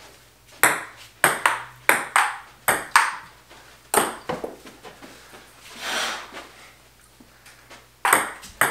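Ping pong ball clicking back and forth in a rally, paddle hits and table bounces in quick pairs. There is a pause after about four seconds with a short hiss near the middle, and the clicks resume near the end.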